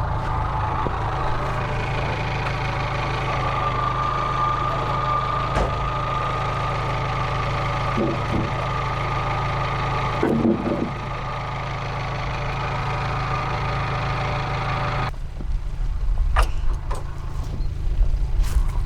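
Band sawmill running through a cut: a steady engine drone with the blade's higher whine and cutting noise over it. About fifteen seconds in the cutting noise stops suddenly, leaving the engine running, and a few sharp knocks follow near the end.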